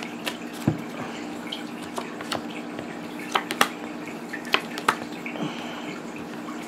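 Tarot cards being drawn from the deck and laid on a cloth reading mat: a string of short, sharp card snaps and slaps at irregular intervals, over a steady low hum.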